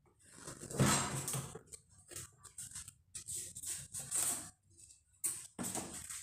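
Cardboard box being handled: the carton is turned and slid on the table and its top flaps pulled open, giving irregular scraping and rustling of cardboard, loudest about a second in and again near the end.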